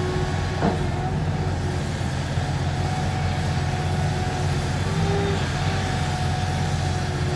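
Liebherr 964 hydraulic excavator's diesel engine running steadily under digging load, with a steady whine over the low drone. There is one sharp knock about a second in.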